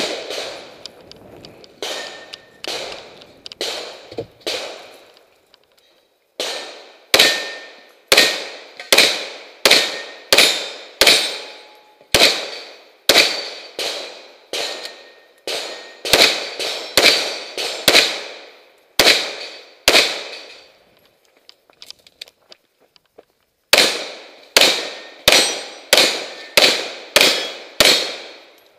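Rapid strings of gunshots, mostly about two a second, each with a short echoing tail. The strings pause briefly twice, and a struck steel target rings now and then after a shot.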